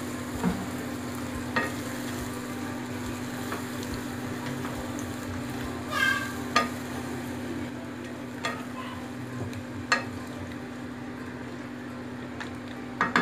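Chicken curry sizzling in a non-stick pan as a plastic spatula stirs it, with scattered taps and scrapes of the spatula against the pan and a brief squeak about six seconds in. A steady low hum runs underneath.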